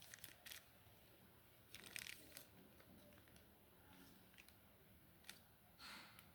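Faint rustling and light clicks from small items and packaging being handled during an unboxing, in a few short bursts with the loudest rustle about two seconds in.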